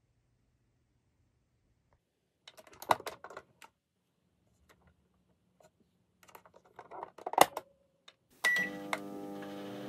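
Small plastic clicks and rattles of a miniature toy kitchen oven being handled, with a sharp clack about seven and a half seconds in as its door shuts. Near the end a short beep, then a steady electric hum like a microwave oven starting to run.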